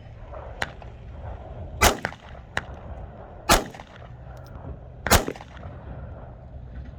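Pistol fired one-handed, three loud shots about a second and a half apart.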